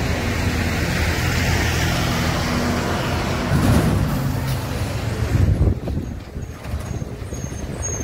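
Diesel lorry engine running as the truck drives past close by, louder as it comes alongside, then dropping off suddenly about six seconds in.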